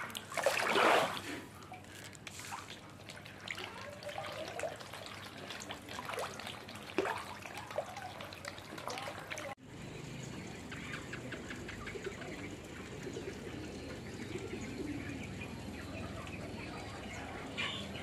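Water splashing and trickling at a pond surface, with one loud splash in the first second and smaller splashes and drips after it. About halfway through it cuts to a steady outdoor background with faint, quick repeated ticks.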